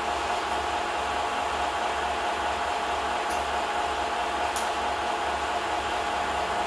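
Steady mechanical whir and hiss of a film projector running, with a held hum under it and a couple of faint ticks.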